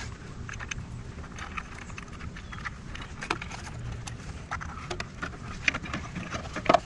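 Hands working wiring connectors and a plastic battery compartment cover on an e-bike: scattered small clicks and taps, with a louder click near the end.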